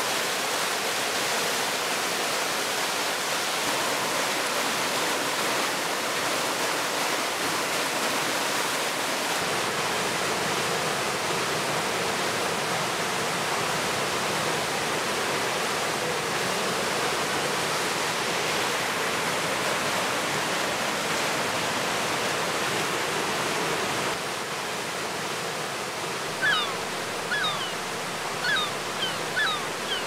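Steady rush of the flooded River Afan in spate, brown whitewater pouring over rocks and a weir. Its tone shifts slightly between shots. Near the end a bird gives several short, high, falling calls over the water.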